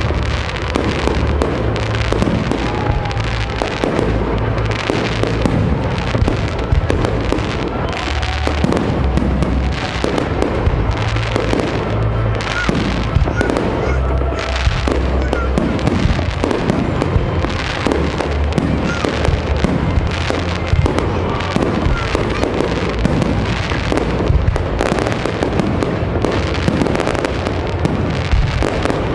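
Fireworks display: a dense, continuous run of shell bursts and crackling, many bangs a second, over music with a deep bass line played along with the show.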